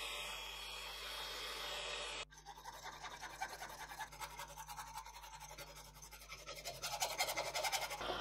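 A small drilling machine runs steadily as its bit drills into brass bar. About two seconds in it cuts off abruptly and a hand hacksaw takes over, rasping back and forth through brass bar clamped in a vise and growing louder near the end.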